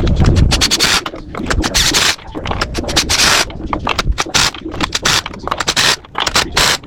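Irregular scraping and scratching noises: a rapid, uneven series of short rasping strokes.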